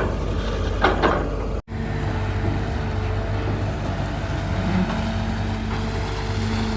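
Excavator's diesel engine running steadily, with two short knocks about a second in and a brief dropout in the sound soon after. A steady higher tone joins about two-thirds of the way through.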